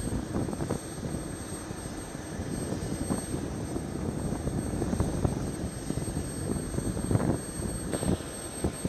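Helicopter running: a steady low rumble with uneven low thumps and a thin, steady high whine.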